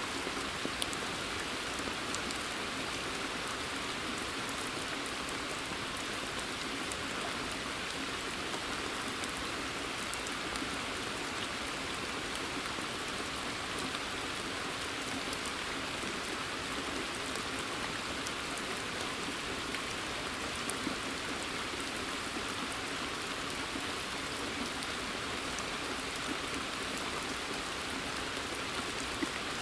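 Steady rain falling in woodland: an even hiss with scattered individual drops ticking close by.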